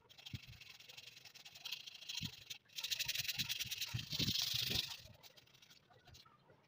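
Sandpaper rubbed by hand over the painted, filled metal body of a Singer sewing machine: a dry, scratchy hiss of rapid short strokes, loudest about halfway through, with a few soft knocks.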